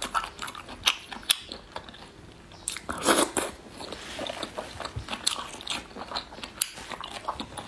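Close-miked chewing of springy meat: wet mouth clicks and small crunchy crackles, with one louder chewing sound about three seconds in.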